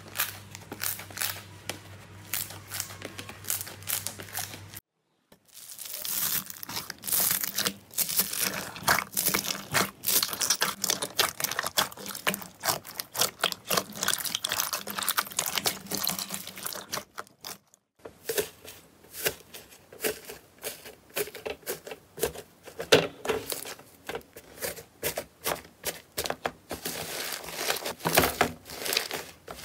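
Hands squeezing and kneading slime, making dense, rapid crackling pops and squelches. The sound comes in three separate takes, split by brief silent breaks about five and eighteen seconds in.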